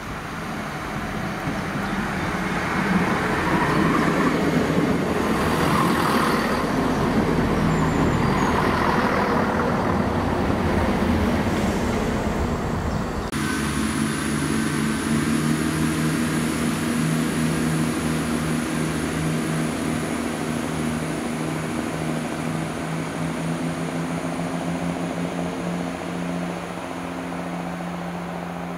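Class 170 Turbostar diesel multiple unit running into the station, its wheel and engine noise growing louder over the first dozen seconds. After an abrupt change about halfway, its underfloor diesel engines give a steady, pitched hum with a thin high whine above it, slowly fading as the train pulls away.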